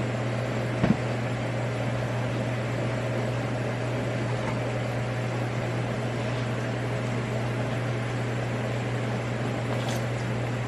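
Steady machine hum with an even whir, like a running appliance motor or fan, with a small knock about a second in.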